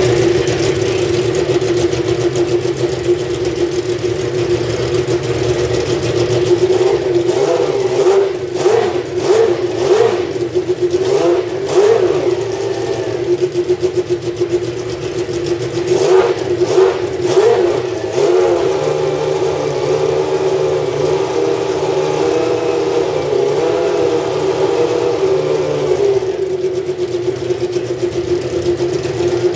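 McLaren Honda MP4/6's 3.5-litre Honda V12 Formula One engine idling, with a run of quick throttle blips about a quarter of the way in and another just past halfway. Each blip spikes the revs briefly before they drop back to a steady idle.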